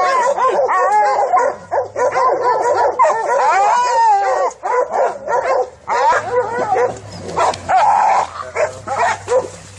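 Pack of hunting dogs barking, baying and yelping at a bayed wild boar, many overlapping calls with no pause.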